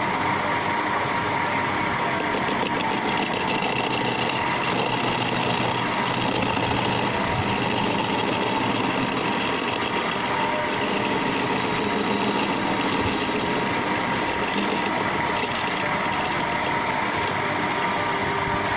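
A machine running steadily, a continuous mechanical noise with a faint constant whine.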